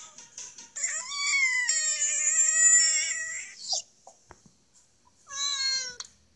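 A frog's distress scream: a long, wavering, high wail lasting about three seconds, then a shorter second scream about five seconds in.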